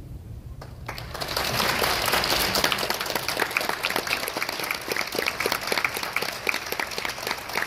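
Small audience applauding in an auditorium, starting about a second in and quickly building to a steady patter of individual claps.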